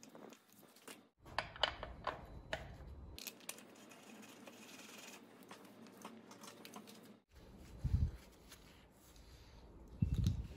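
Hand tools clicking and scraping against the metal axle bolts of a scooter's front hub-motor wheel as it is tightened onto the fork, with gloved hands rubbing on the parts. Two dull low thumps come in the second half.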